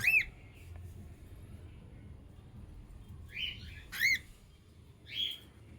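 Young cockatiels calling: four short calls, two clear chirps that rise and fall and two raspy calls in between.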